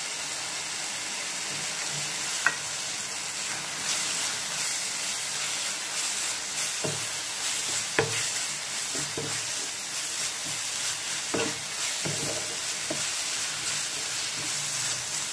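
Onion-tomato masala sizzling in a nonstick frying pan while a wooden spatula stirs it, with a few sharp knocks of the spatula against the pan.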